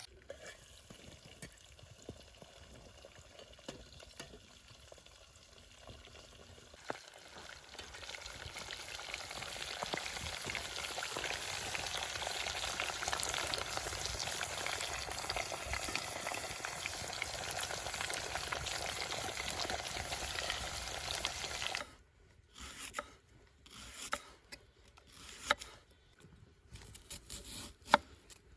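Food frying in hot oil in a kazan: a sizzling hiss, faint at first, swells up from about seven seconds in and then cuts off suddenly about three-quarters of the way through, followed by a few scattered knocks.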